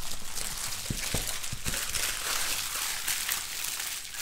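Empty foil trading-card pack wrappers crinkling and rustling as they are scooped up by hand and cleared off the table, with a few dull knocks between one and two seconds in.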